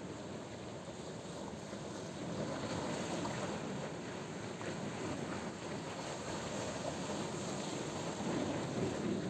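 Sea waves breaking against rocks: a steady surf wash that swells a little about two and a half seconds in and again near the end.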